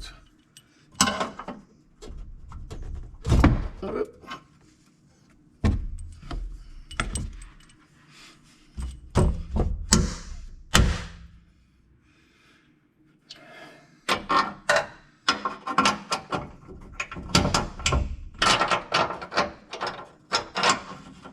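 Irregular metal clunks and thuds as a pickup truck's front bumper is shifted on its mounting brackets, then a quick run of clicks and rattles from about two-thirds of the way in as the mounting bolts are fitted.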